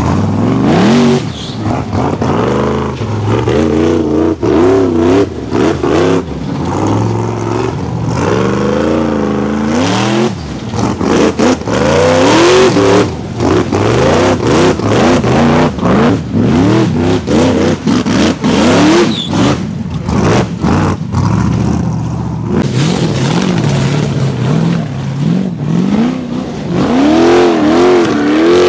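Rock bouncer buggy engines revving hard under load as the buggies climb a steep dirt hill, the pitch rising and falling over and over.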